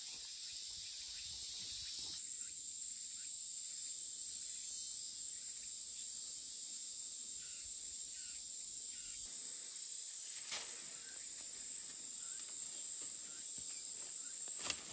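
Steady high-pitched insect chorus, with a couple of faint clicks about ten seconds in and near the end.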